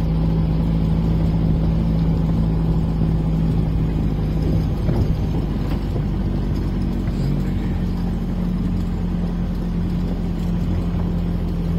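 Vehicle engine running as it drives slowly along a dirt track, a steady low drone whose pitch steps up a little about halfway through.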